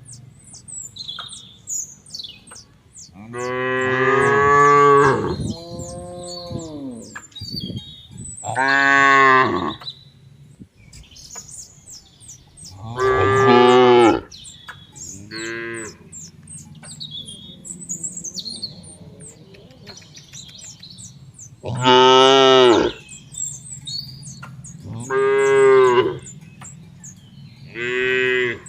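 Cows mooing in turn, about eight long moos of one to two seconds each, some loud and some fainter, with small birds chirping in the gaps.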